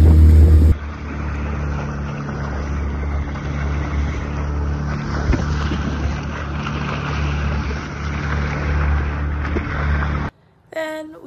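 Motorboat engine running at a steady pitch as the boat travels over open sea, with water rushing and wind buffeting the microphone. The sound drops in level abruptly shortly after the start and cuts off near the end.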